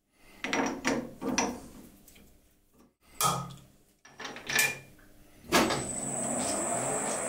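A series of sharp clunks from a Colchester metal lathe, then about two-thirds of the way through the lathe starts up and runs steadily with a thin, high whine, ready to drill with a 17mm cobalt jobber drill.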